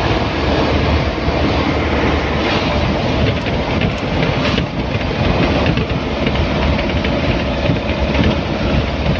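Engine and road noise inside the cab of a moving vehicle: a steady loud rumble with a constant fine rattle.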